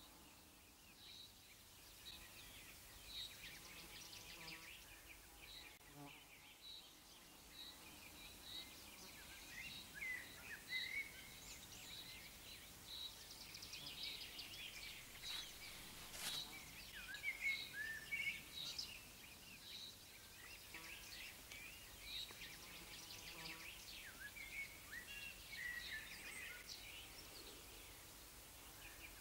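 Faint birdsong: a short high note repeated about once a second, with other birds' chirps and brief warbling phrases over it.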